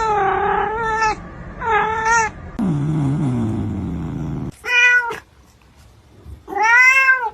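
A cat meowing loudly again and again: four separate meows, the last one rising and falling, with a lower drawn-out yowl in the middle.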